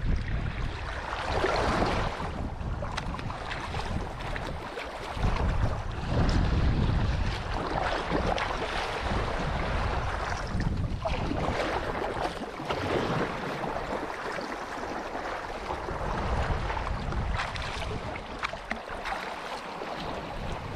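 Water rushing and splashing along a sailing kayak's hull as it moves under sail, with wind buffeting the microphone in gusts.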